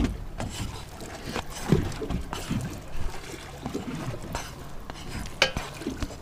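Raw lobster chunks scraped off a paper plate with a spatula and dropped into a hot skillet of butter and garlic: wet scraping and soft slapping, with light frying in the pan and a few sharp taps of the spatula against plate and pan, the loudest about two seconds in and near the end.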